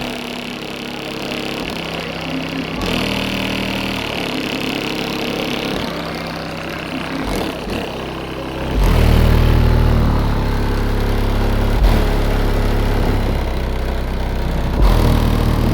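Heavy-bass song played loud on a car stereo, driven through a DC Audio Level 4 12-inch subwoofer in a custom box. The bass notes step from chord to chord, and the bass gets much stronger about nine seconds in.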